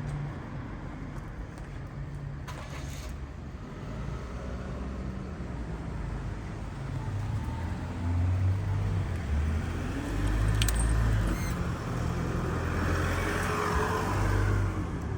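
Road vehicles running and passing, a low rumble that swells and fades, growing louder after about the middle.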